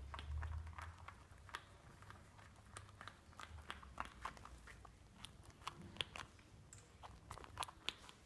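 Ground squirrel gnawing and scrabbling at a plastic toy ball on a tile floor: faint, irregular clicks and scrapes of teeth and claws on plastic. A low rumble sounds in the first second or so.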